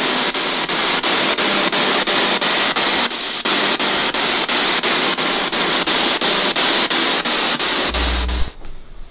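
Spirit box sweeping through radio stations: a steady hiss of static chopped by regular clicks, about four a second. It cuts off with a low thump near the end.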